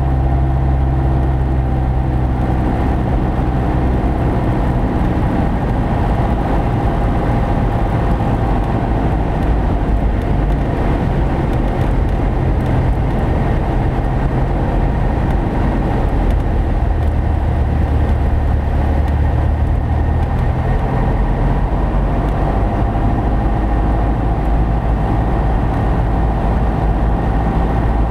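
Cessna 172P's four-cylinder Lycoming engine and propeller droning, heard from inside the cabin on final approach at night. The engine note shifts a few times as power is adjusted for the landing.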